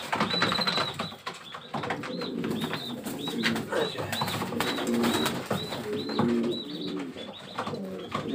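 Domestic pigeons cooing in a loft, with repeated short, high arching notes and scattered flapping and scuffling as birds are caught by hand.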